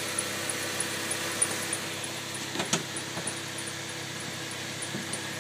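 Toyota Tacoma pickup's engine idling steadily, with a short click a little under three seconds in.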